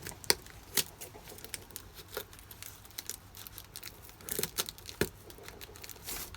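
Scissors snipping and cutting at packaging, with crinkling and tearing: irregular sharp clicks, bunched together a little past four seconds.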